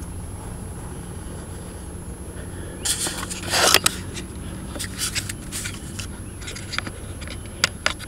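Scrapes, rustles and sharp clicks of the handheld camera being handled and tilted, close to the microphone, starting about three seconds in and loudest just before four seconds, with scattered clicks after. Under them runs a steady low rumble.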